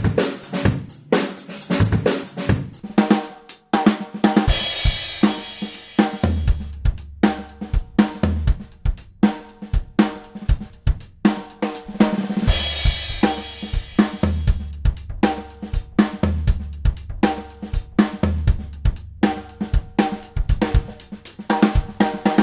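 Drum kit played in a fast, busy pattern of snare and bass drum strokes, with cymbal crashes about four and again about twelve seconds in. Low held bass notes come in underneath about six seconds in.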